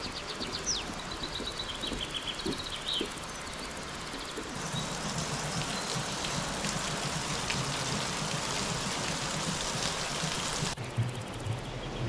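Birds chirping with short calls and quick sweeps for the first few seconds. Then, from about four and a half seconds in, a steady hiss of water streaming and splashing off a hut roof, which cuts off suddenly near the end.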